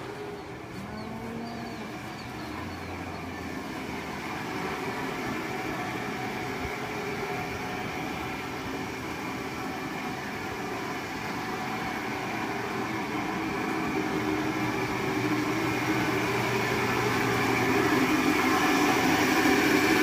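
Steady mechanical running of a belt-driven farm machine, its pulleys and V-belts turning, with a constant hum and whir of several held tones that grows steadily louder toward the end.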